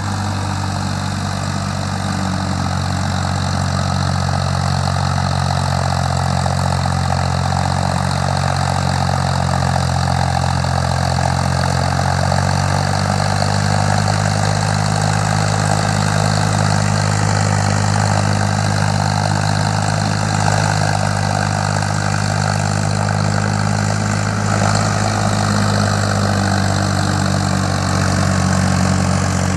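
Tractor engine running steadily at a constant speed, with a low, even hum.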